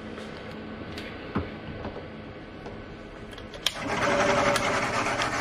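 Milling machine running with a steady mechanical hum. About three and a half seconds in, a louder whirring joins it and continues to the end.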